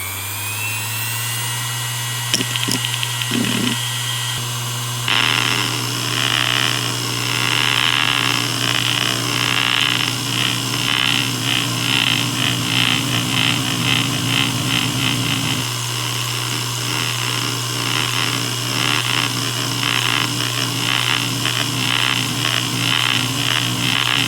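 Maxtor DiamondMax 10 6V300F0 7200 rpm hard drive with its spindle motor settling into a steady hum after spin-up. A few soft ticks come from the heads about two to four seconds in. From about five seconds in, continuous rapid seek chatter from the head actuator runs over the hum.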